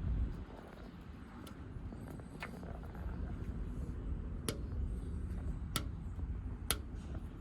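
Grundfos SCALA2 water booster pump running with a steady low hum, with about five sharp clicks at irregular intervals.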